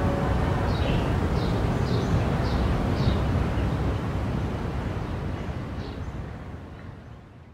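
Outdoor night ambience: a steady low rumble with a string of short, high, falling chirps about twice a second, all fading out over the last few seconds.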